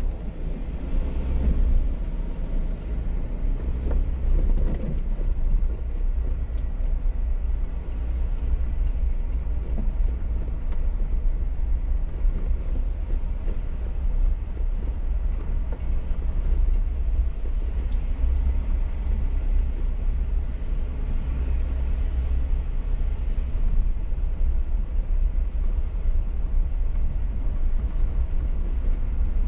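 Off-road 4x4 driving along a dirt forest trail, heard from inside the cabin: a steady low engine and tyre rumble with faint small rattles throughout.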